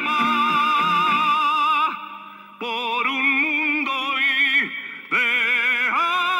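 Male singer holding long, high sung notes with a wide vibrato in the climactic close of a ballad, breaking off briefly twice.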